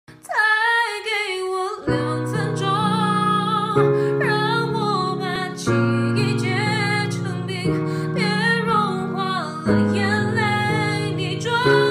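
Background music: a slow sung ballad, a woman's voice over sustained accompaniment chords that change about every two seconds.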